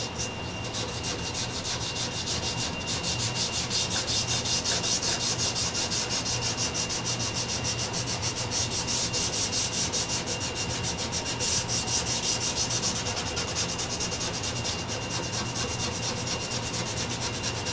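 Gloved hand scrubbing a dye-soaked applicator back and forth over a bare wooden board, rubbing diluted purple leather dye into the grain: a quick rhythmic scrubbing hiss of about four strokes a second.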